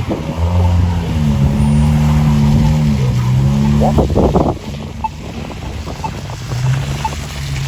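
A car engine running loudly with a steady hum whose pitch wavers and dips slightly, fading off about four and a half seconds in.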